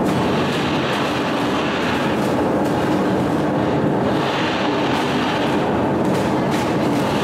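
Loud, steady rumbling noise with a low hum running under it and scattered faint clicks.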